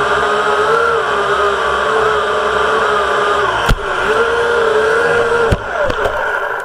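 Syma X8HW quadcopter's motors and propellers whining loudly, heard from the camera mounted on the drone, the pitch wavering as the throttle shifts. The drone comes down into the grass with a couple of sharp knocks, and the motors slow and cut off at the end.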